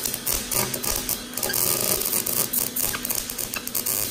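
Electric welding arc crackling steadily as a weld is laid on exhaust piping.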